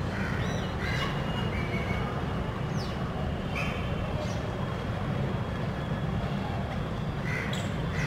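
Short bird calls, a few at a time with gaps of a second or more, one of them a quick falling note, over a steady low rumble.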